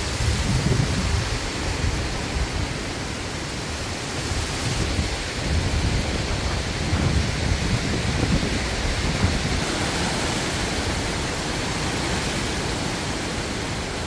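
Wind buffeting the microphone: an even hiss with low, gusty rumbles that swell and fade.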